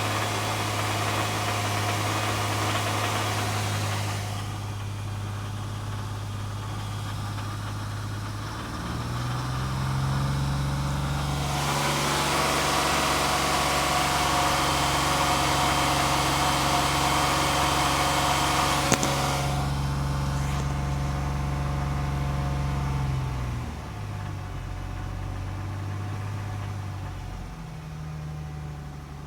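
Hyundai Genesis 3.8-litre V6 engine running with a knock or rattle whose cause the owner cannot identify. It idles, is held at a higher speed from about ten seconds in, and drops back to idle a few seconds before the end, with one sharp click partway through.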